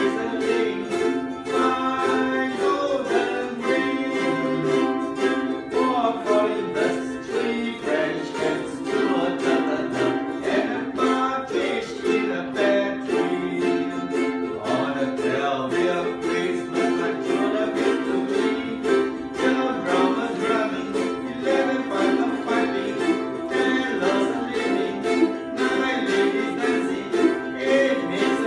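A group of ukuleles strumming chords together in a steady rhythm.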